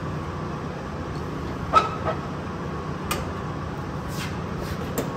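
A few short sharp clicks as the small square plastic grille clips are pushed into the holes of a Chevy C10's centre radiator support. The loudest click comes a little under two seconds in, with a brief ring, over a steady low hum.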